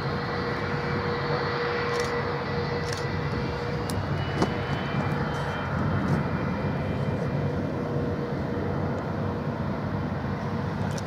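Jet engines of a taxiing Boeing 757 airliner running at low power: a steady rush of noise with a thin, steady whine on top.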